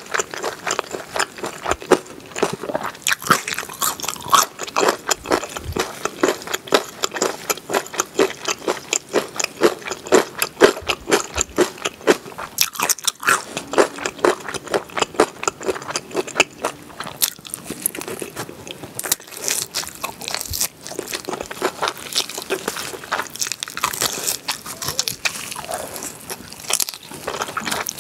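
Chewing and biting on cheese-dipped grilled pork back ribs: a dense, continuous run of quick clicks and crunches as the meat is gnawed off the bone.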